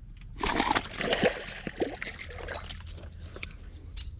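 Water splashing and sloshing at a rocky shoreline, with a loud splash about half a second in and scattered knocks and scrapes on the rocks: a bowfin going back into the water after being unhooked.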